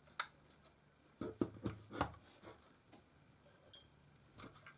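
Scattered light clicks and taps of a small screwdriver and fingers on a camcorder's plastic casing while a case screw is undone, with a short run of clicks about a second in.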